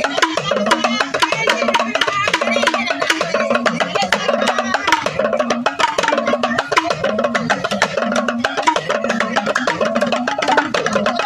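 Dance music with fast, dense percussion strokes over a repeating melody, with voices in it.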